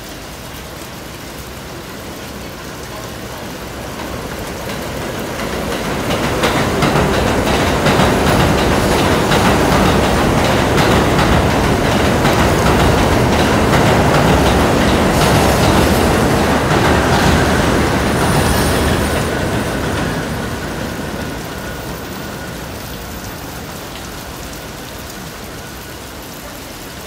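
An R46 subway train runs through the station at speed without stopping, its wheels clattering over the rails. The noise builds over several seconds, stays loud for about twelve seconds as the cars pass, then fades as the train pulls away. Steady rain hiss runs underneath throughout.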